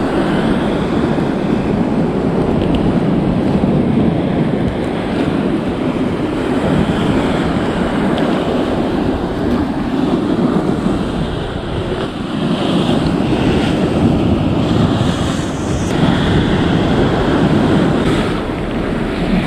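Wind buffeting the microphone over the steady rush of sea water, a loud, continuous noise with no pauses.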